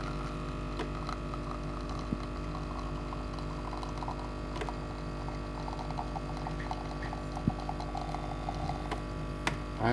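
Iperespresso capsule coffee machine's pump humming steadily as it pushes water through the capsule and brews, with a few faint ticks.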